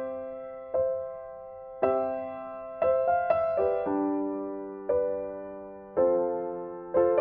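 Background music: a slow, gentle piano piece, chords struck about once a second and left to fade.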